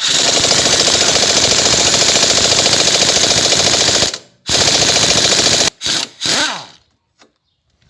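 Impact wrench hammering loose the two bolts holding a worn front ball joint: a loud, rapid rattle for about four seconds, a short pause, a second burst of just over a second, then a few brief bursts winding down.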